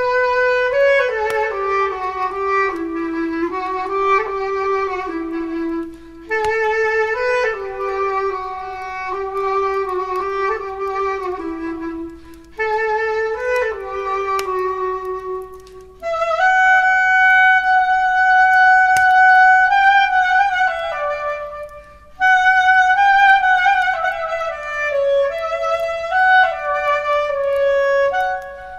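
Solo clarinet playing a slow melody in phrases separated by brief breaths, moving to a higher register about halfway through.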